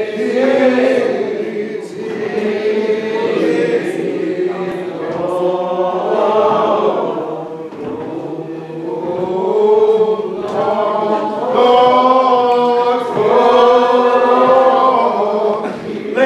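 A hymn sung a cappella by several voices together, slow, with long drawn-out notes that swell and fade phrase by phrase.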